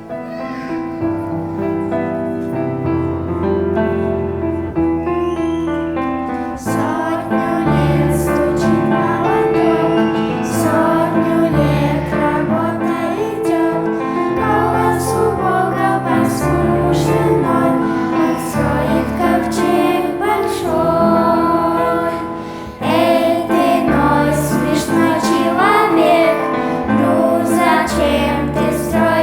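Children's choir singing a Russian-language church song with instrumental accompaniment. The accompaniment plays alone at first, and the voices come in strongly about six seconds in.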